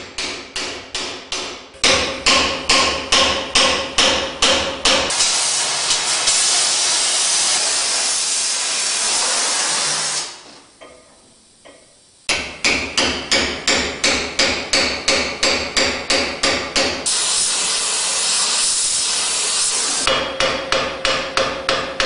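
Hand hammer striking a chisel into red-hot steel on an anvil in a quick, even rhythm of about three blows a second, the anvil ringing between blows, as the sepals are split off the stem of a forged steel rose. Twice the blows give way for a few seconds to a steady hiss, and there is a short quiet break about halfway.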